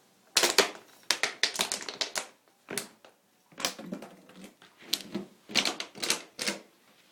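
Plastic bottle crackling in irregular bursts of sharp clicks as a pet bites and crushes it.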